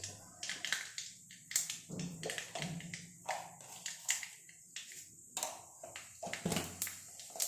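Mustard seeds popping and crackling in hot oil in a kadhai: irregular sharp pops, a few a second. The seeds spluttering is the sign that the oil is hot enough for the rest of the tempering spices to go in.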